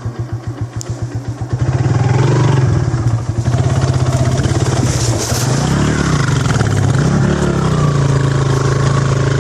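Motorcycle engine running at low revs with a pulsing beat. About a second and a half in it gets louder, and it revs up and down a couple of times under load.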